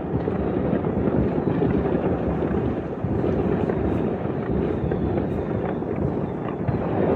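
New Year fireworks going off in many places at once, blending into a continuous rumble with a few faint sharper pops on top.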